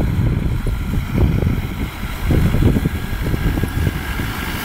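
Land Rover Defender 90 diesel engine running as it drives through a water-filled rut, water churning around the wheels. Gusty wind buffets the microphone throughout.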